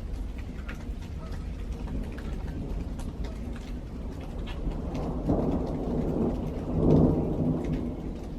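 Thunder rumbling over steady rain during a thunderstorm. The rumble swells about five seconds in and peaks near the end, with scattered raindrop ticks throughout.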